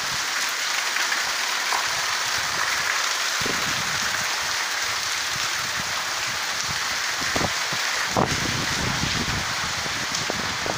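Heavy downpour falling on concrete and asphalt: a steady, dense hiss of rain.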